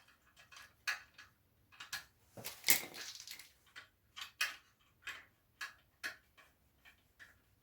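Irregular light clicks and taps of a socket wrench working on the 10 mm bolts of a Honda CG125's front mudguard, about two a second, the loudest a little before halfway.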